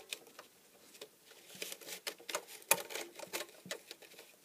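Fingers pressing and smoothing a Teflon strip over an impulse sealer's heating element: faint rustling and scattered light taps and clicks, the sharpest a little under three seconds in.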